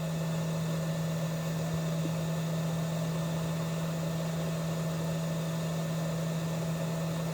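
Hot air rework station's blower running steadily: a constant low hum under an even hiss of air, during the 183 °C flux-activation stage of hot air reflow soldering.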